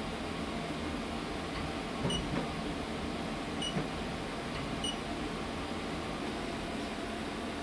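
Steady hum of a CNC vertical machining centre while a spindle touch probe picks up on the blocks. Three short high beeps come about two, three and a half and five seconds in, with a few faint clicks.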